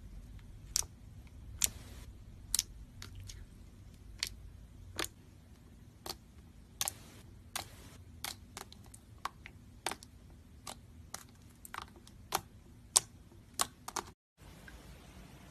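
Slime being squeezed and poked by hand, giving a string of sharp, irregular clicking pops, about two a second.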